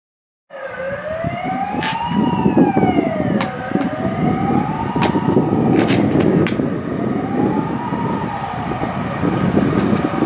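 A wailing siren, rising and falling in pitch about every three seconds, over a steady rumble with a few sharp clicks.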